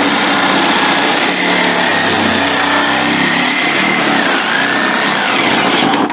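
Power cutting tool running continuously as it cuts into the Jeep's metal, a loud steady noise with a wavering high whine. It stops at the very end.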